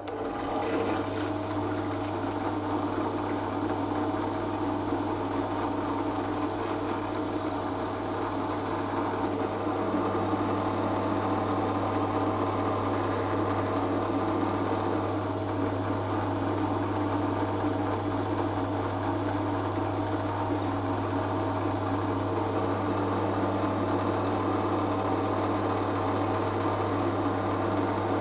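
Bench drill press running with a steady motor hum while its fine bit drills small side-marker dot holes into the edge of a guitar neck, at the seam of the ebony fretboard and maple neck.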